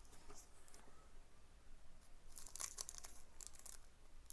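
Faint rustling and crinkling of packaging being handled, in a few short clusters, busiest in the second half.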